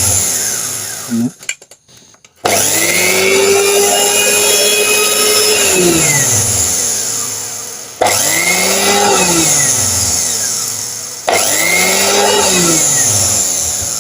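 Mixer grinder's brushed motor run bare in short bursts. The end of one run is dying away at the start. Then three times it starts abruptly, whines up to speed and winds down again. The motor is sparking at its commutator, which the repairer puts down to a burnt armature commutator that wears the carbon brushes out quickly.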